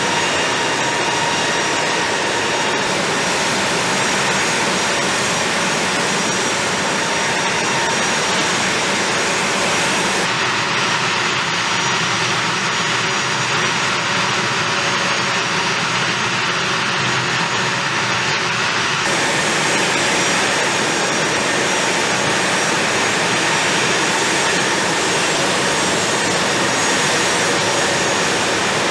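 Jet engines running steadily: a broad, even rush with high whining tones over it. The mix shifts abruptly a few times.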